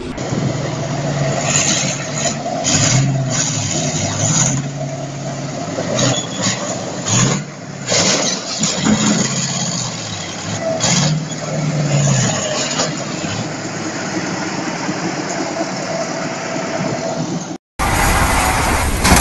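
Heavy truck's diesel engine revving up and falling back again and again as it labours across railway tracks, with rattling and scraping over the engine. Near the end it cuts to a louder, denser engine noise.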